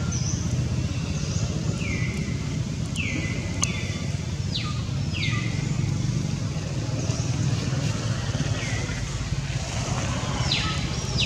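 Outdoor ambience: a steady low rumble like distant traffic, with a scattering of short, high whistled bird calls, each sliding down in pitch.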